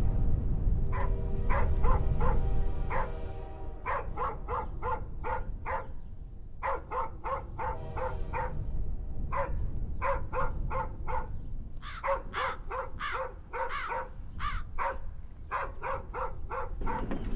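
Dog barking repeatedly, in runs of several quick barks with short pauses between them.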